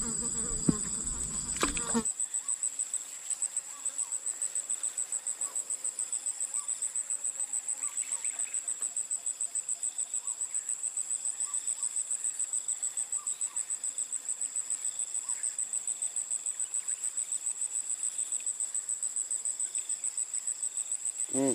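Insect chirping in a steady, high-pitched pulsed trill of about five pulses a second. In the first two seconds there is low rumbling handling noise with a couple of sharp knocks.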